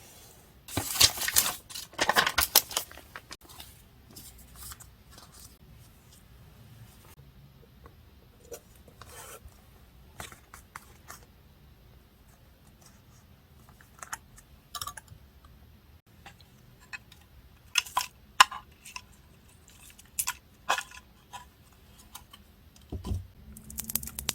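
Crisp paper-crafting handling sounds: two loud rustling strokes of paper being cut or torn near the start, then scattered light clicks, taps and paper rustles.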